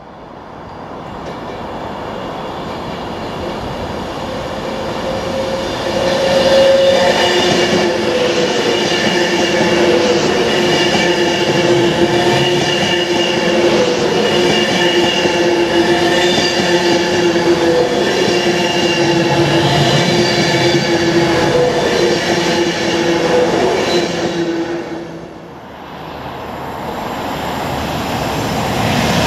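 Class 390 Pendolino electric train passing at speed: wheels rumbling on the rails with a steady whine, building over the first few seconds and holding as the long train goes by. Near the end a second train, a TransPennine Class 185 diesel unit, is heard approaching.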